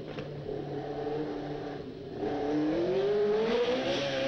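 Ford-Cosworth DFV V8 of a Tyrrell P34 heard on board, held at low revs through a slow corner, then revving up hard and getting louder from about halfway. The note drops back near the end as the gear changes up.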